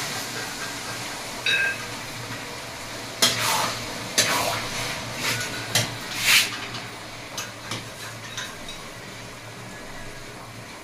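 Boiled kidney beans being tipped from a metal pot into a kadhai of fried masala, a spoon scraping and knocking against the metal to push them out, with a ringing clink about a second and a half in. The masala sizzles softly underneath.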